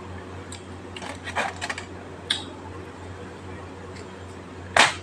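Aluminium foil crinkling and tableware clicking as chapati is handled on a foil-lined plate: a few quick rustles about a second and a half in, a click a little later, and a sharp, louder crackle near the end, over a steady low hum.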